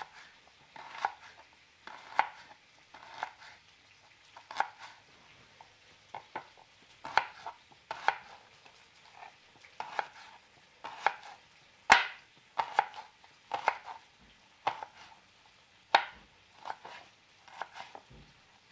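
Kitchen knife slicing an onion on a wooden cutting board: a run of irregular, short tapping strokes, roughly one or two a second, with one sharper knock about twelve seconds in.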